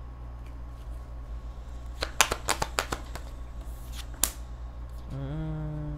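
Tarot cards being shuffled and flicked by hand: a quick run of crisp card snaps about two seconds in, and one more snap a second later.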